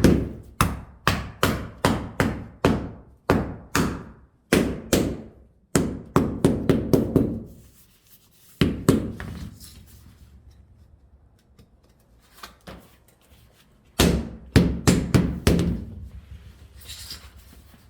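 Hammer knocking new wooden floorboards into place, with strikes about twice a second, a quicker flurry, a pause, and a second burst of knocks near the end.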